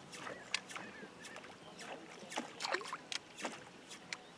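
Faint, irregular water splashes and plops at the surface, a scatter of short sharp sounds with no steady rhythm.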